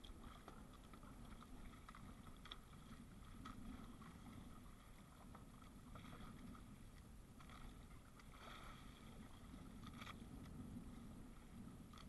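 Faint, steady low rumble of water and wind around a small outrigger boat, with a few soft clicks scattered through it.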